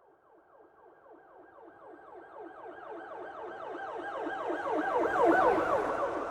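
Police car siren on a fast yelp, its pitch sweeping up and down about four times a second. It grows steadily louder as it draws near and is loudest about five seconds in, with some road noise, then begins to fade.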